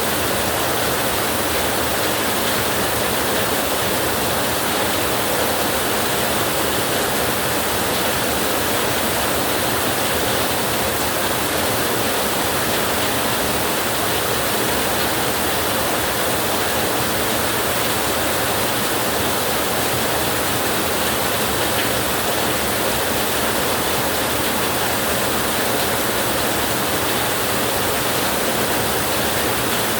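Heavy rain falling on a tin roof as a steady, unbroken hiss, even in level throughout, with no thunder.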